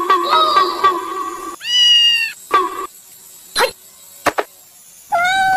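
Kitten meowing: a drawn-out meow about a second and a half in, a short one just after, and another long meow near the end, with a couple of sharp clicks between them.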